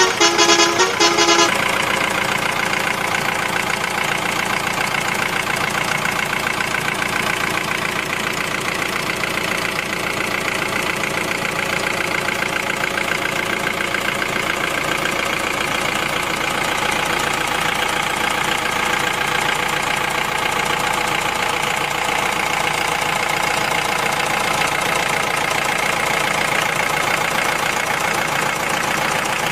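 A truck horn toots in a quick repeating pattern for about the first second and a half, then a truck engine runs steadily.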